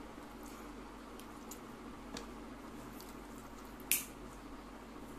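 Eating rice and mutton curry by hand: wet squishing of fingers working the food and chewing, with a few faint clicks and one sharp click about four seconds in, over a faint steady hum.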